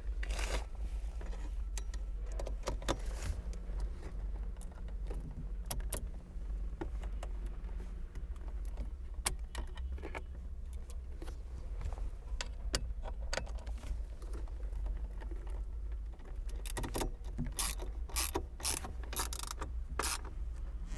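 Hand ratchet clicking in short runs as the airbag's mounting screws are driven back in with a T30 Torx bit, the clicking growing dense near the end.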